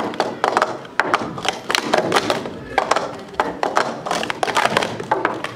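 Plastic speed-stacking cups being stacked up and down at speed by two doubles stackers on a timing mat: a fast, irregular run of light clicks and clacks as cups are set down and slid together.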